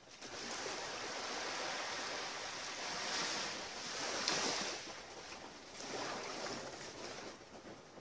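Small waves lapping and washing onto the shore in an even hiss that swells and eases as the waves come in.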